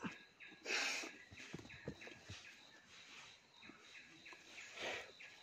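Soil and dry leaves scraping and rustling as a hand digs into a burrow in the ground, in two short bursts, about a second in and near the end, with a few small scratches between. Behind it, short chirps repeat steadily at about two a second.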